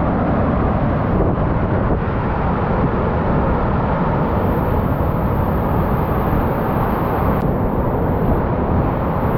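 Waterfall: water pouring and splashing, a steady rushing noise with no breaks.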